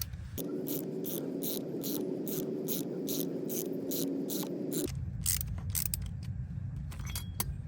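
Ratcheting brake caliper piston compressor clicking about four times a second as it pushes the rear caliper piston back in against the old pad, then a few slower single clicks near the end.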